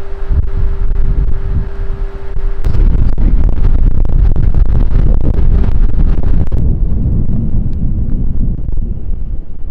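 Strong wind buffeting the microphone, a heavy low rumble. A steady hum-like tone runs under it at first and stops about two and a half seconds in, where the rumble grows louder; it turns duller about two-thirds of the way through.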